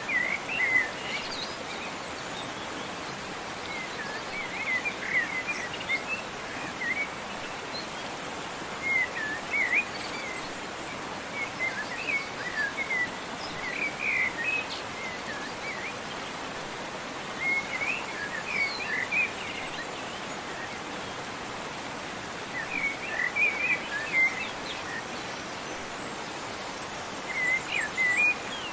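Steady rush of a waterfall, with songbirds chirping over it in short bursts of quick high chirps every few seconds.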